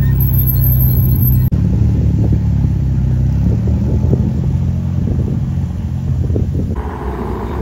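Sports car engine running close by at low revs, a deep steady rumble. The sound breaks off abruptly about a second and a half in, and the engine note changes near the end.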